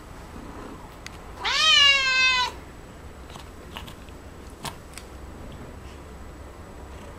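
A domestic cat meowing once, about a second and a half in: one drawn-out call that rises and then falls in pitch. The cat is begging for cat grass held just above it.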